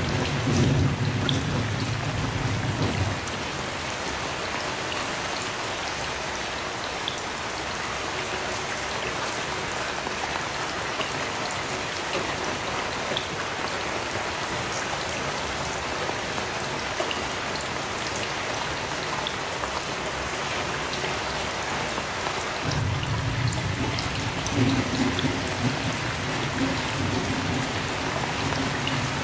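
Heavy rain falling steadily. A low rumble of distant thunder fades out about three seconds in, and another rolling rumble starts near the end.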